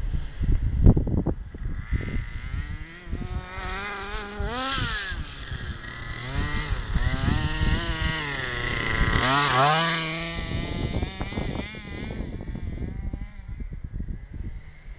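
Zenoah G320 single-cylinder two-stroke engine of an HPI Baja 5B RC buggy revving up and down as the car is driven, its pitch rising and falling several times and highest about a third and two-thirds of the way through. Low wind rumble on the microphone at the start and near the end.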